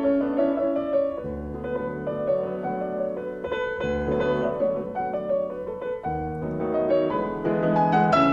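Background piano music: a slow piece with sustained chords and a melody, deep bass notes entering every couple of seconds.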